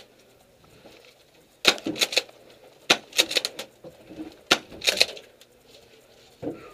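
Airsoft gunfire: sharp clacks in short rapid clusters, four bursts with quiet gaps between.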